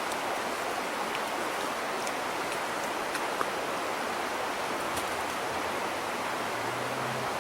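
Small creek running, a steady, even rush of flowing water.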